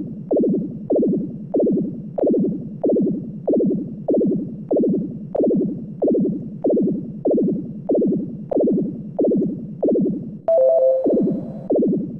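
A synthesized tone sweeping down in pitch, repeated evenly about one and a half times a second like an alarm pattern, with a short steady two-note tone laid over it about ten and a half seconds in.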